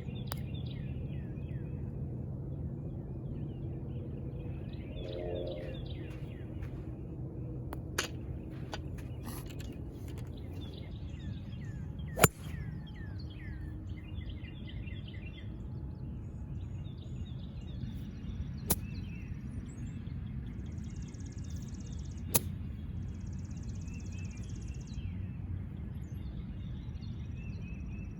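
Golf clubs striking balls: four sharp, separate strikes spread several seconds apart, the second the loudest, over birds chirping and a low steady outdoor rumble.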